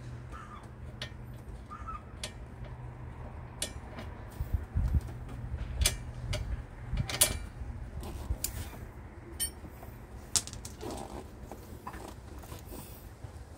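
Scattered clicks, knocks and light metallic clinks of parts and tools being handled while a car's wiper linkage is fitted, with a few louder knocks about five to seven seconds in, over a steady low hum.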